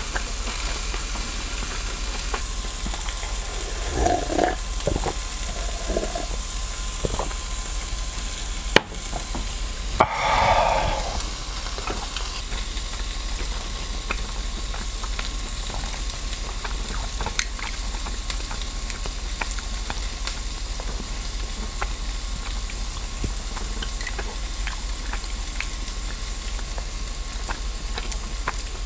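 Meat sizzling steadily on a round grill plate over a portable gas stove, with scattered light clicks of chopsticks and bowl. A sharp click and a brief louder sound come about ten seconds in.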